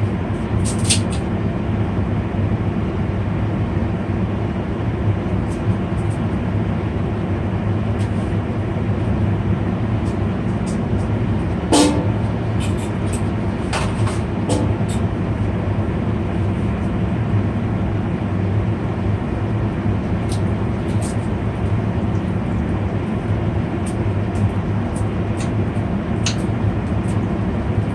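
A steady low hum runs throughout while oil heats in a non-stick pan on a gas burner, with scattered faint ticks and small pops. One louder, briefly ringing metallic tick comes about twelve seconds in.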